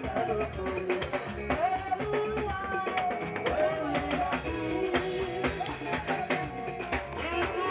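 Music with a drum kit and guitar keeping a steady beat, and a voice singing over it.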